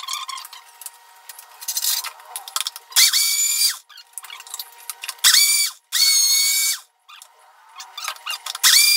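Kitchen mixer grinder blending a smoothie in four short pulses. Each time its motor whines up to speed and winds back down.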